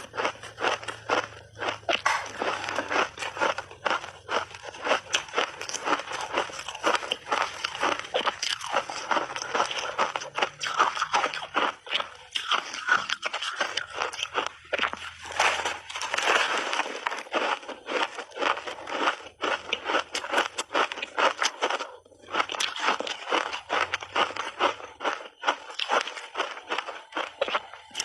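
A person biting and chewing a crunchy layered ice cake: rapid, dense crunching and cracking of hard ice between the teeth, with brief pauses between bites.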